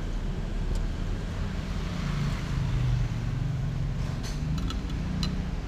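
A motor vehicle's engine running steadily, its low hum wavering slightly in pitch, with a few light clicks about four to five seconds in.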